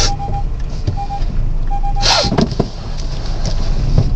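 Steady low rumble inside a car cabin, with a rapidly pulsing beep heard twice and a short rustling whoosh about two seconds in.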